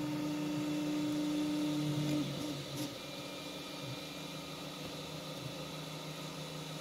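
3D printer running as its print head lays a bridge across an unsupported gap: a steady motor whine at one pitch for the first two seconds or so, which then stops, leaving a quieter steady hum of motors and fans.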